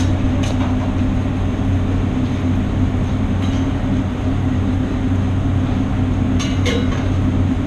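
Steady, loud drone of a commercial kitchen's extractor hood fan running over the gas range. Two short metal clanks come near the end, as a pan is handled on the range.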